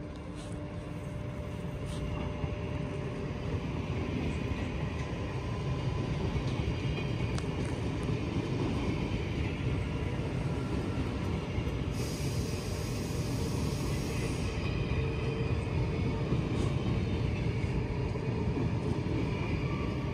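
NS VIRM double-deck electric train running into the station, a steady rumble of wheels and motors that grows louder over the first few seconds and then holds. About twelve seconds in, a high hiss lasts for a couple of seconds, and faint squeals sound over the rumble.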